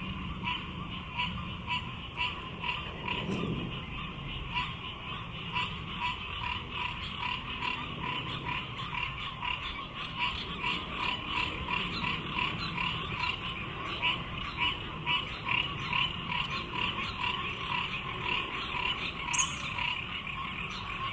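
A chorus of frogs calling at the pond, a steady stream of short, rapidly repeated calls overlapping at two pitches. There is a single soft knock about three seconds in.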